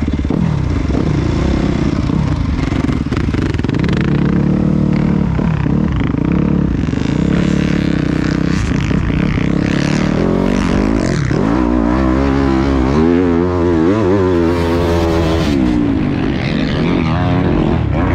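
Onboard sound of a Yamaha YZ250F four-stroke single-cylinder motocross bike ridden hard on a dirt track. The engine revs up and falls back again and again with throttle and gear changes, and its pitch wobbles quickly for a few seconds past the middle.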